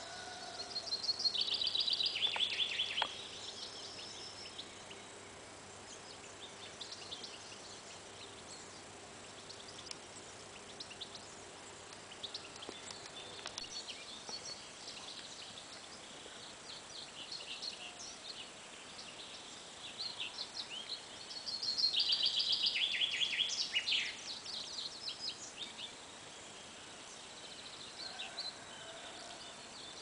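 Songbirds singing in a spring woodland, with a mix of faint, high chirps and phrases throughout. Twice, a loud, rapid trilled phrase steps down in pitch over about two seconds: once near the start and again about two-thirds of the way through.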